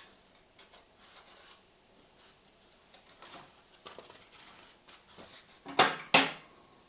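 Hand handling of small hard parts: faint taps and rustles, then two sharp clacks in quick succession about six seconds in.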